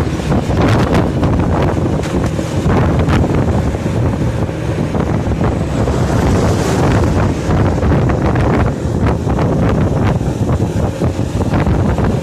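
Loud wind buffeting the microphone: a dense, steady rumble that swells and eases in gusts.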